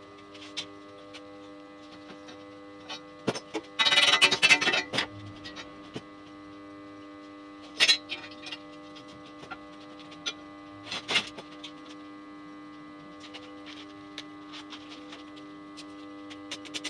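Steady electrical hum of a cheap AC buzz-box stick (SMAW) welder's transformer, idling between welds with no arc struck. Over it come a clattering burst about four seconds in and sharp metal knocks near eight and eleven seconds, from steel tools handled on the welded frame.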